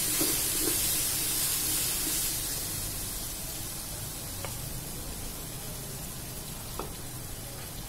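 Oil sizzling in a clay handi as ginger-garlic paste fries on a slow flame with onions and whole spices, the sizzle slowly dying down. A spoon stirs a few strokes near the start, and a couple of faint pops come later.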